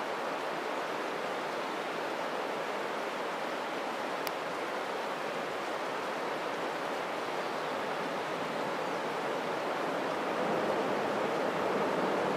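Snow avalanche pouring down a rocky cliff gully: a steady rushing noise that grows louder about ten seconds in as the flow of snow builds.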